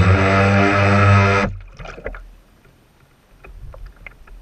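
Radio-controlled boat's motor running steadily with water spraying off the bow, then cutting off abruptly about a second and a half in. After that comes faint water splashing and dripping as the boat settles.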